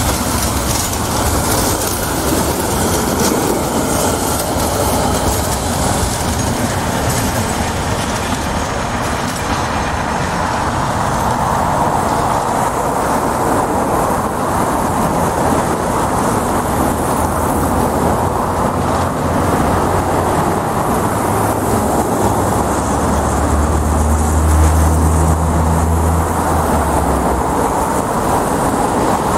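Tram running along street track: a steady rumble of its wheels on the rails. A low hum swells for a few seconds near the end.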